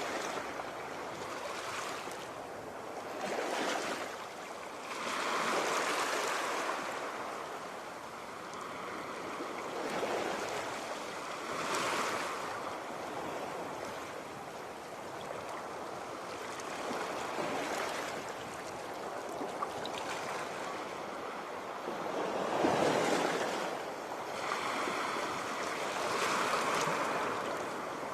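Sea waves breaking and washing up on the shore, a steady rush of surf that swells every few seconds, loudest about two-thirds of the way through.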